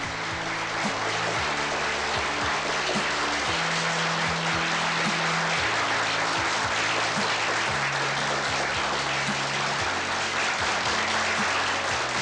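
Large audience applauding steadily, over background music of sustained low chords that change about every two seconds.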